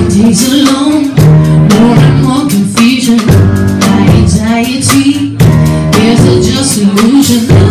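A woman singing a slow song live while accompanying herself on a grand piano. Her held notes waver over sustained chords.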